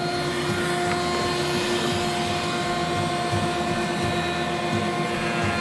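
Router in a router table running at speed together with a dust-extraction vacuum on the fence hood, a steady high whine, while a maple board's edge is fed past the bit to joint it straight for a glue joint.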